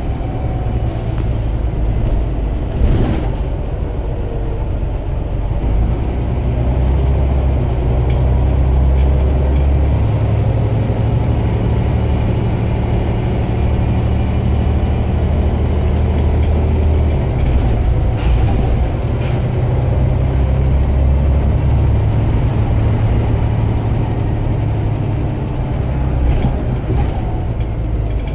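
The 2007 Scania OmniCity (CN230UB) bus in motion, heard from inside the cabin: a steady low diesel rumble from the engine and drivetrain. Its note shifts up and down several times, and there is one sharp knock about three seconds in.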